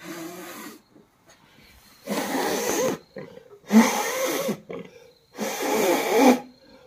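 Forceful mouth-to-mouth blowing into a premature newborn Gir calf's mouth to start it breathing: four breathy blasts, each about a second long, about a second and a half to two seconds apart, the first shorter and weaker.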